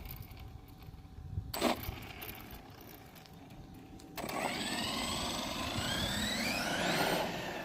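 Electric motor of a Redcat Earthquake 8e RC monster truck whining up in pitch as the truck accelerates, starting about four seconds in. Before that there is a short knock about one and a half seconds in.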